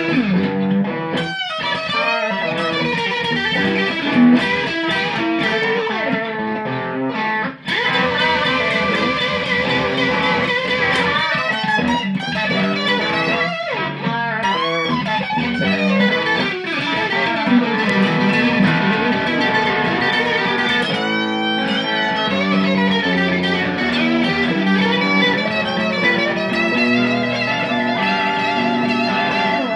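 Fender Sixty Six electric guitar played amplified, a continuous passage of notes, some held notes shaken with vibrato, with a brief gap about seven and a half seconds in.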